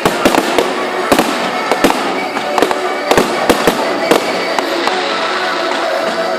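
Fireworks display: a rapid, irregular string of sharp bangs and crackles, several a second.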